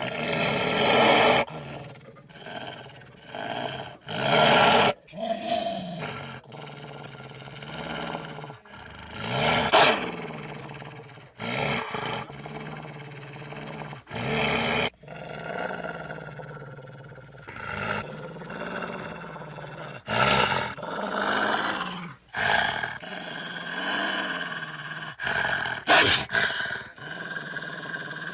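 A string of separate animal growl and roar sound effects serving as dire wolf voices, dog-like growls alternating with deeper roars. About a dozen calls of a second or a few seconds each, cut in one after another with abrupt starts and stops.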